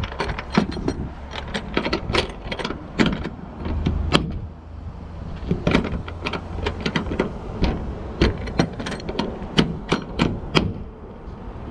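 Irregular metallic clicks and clacks of hood-latch hardware and hand tools being handled, over a low steady rumble.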